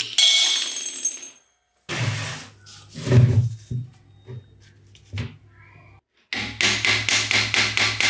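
Hand hammering during a tool restoration. It opens with a single ringing strike, then irregular knocks, then steady hammer blows at about four a second near the end, broken by two short cuts to silence.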